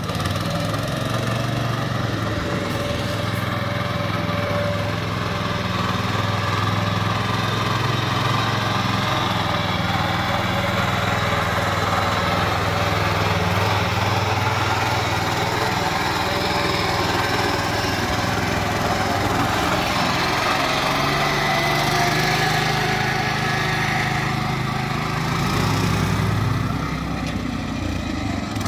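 Small single-cylinder engine of a power weeder running steadily while it pulls a trolley loaded with bricks.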